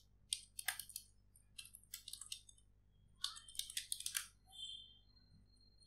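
Faint computer keyboard typing: three quick runs of key clicks as a short word is typed.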